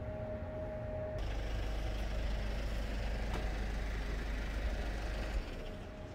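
A steady high tone for about the first second, then a steady low rumble with a hiss that starts and stops abruptly.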